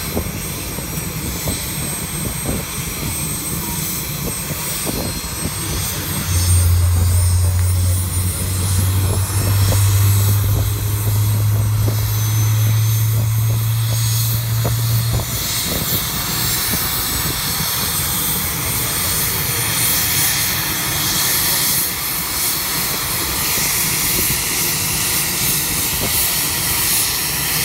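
Sikorsky UH-60 Black Hawk's twin turboshaft engines warming up on the ground, a high turbine whine rising slowly in pitch as the rotor spins up. A steady low hum sits under it for about nine seconds from about six seconds in.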